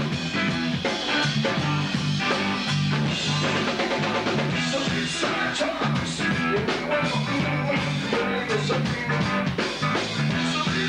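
A rock band playing: drum kit, bass and electric guitar driving a steady, pulsing riff.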